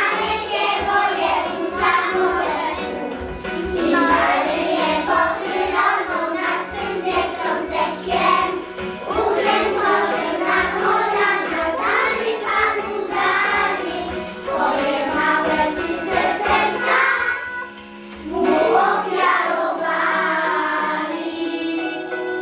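Group of young preschool children singing together over instrumental backing music. The singing breaks briefly about three-quarters of the way through, and near the end gives way to the instrumental music alone.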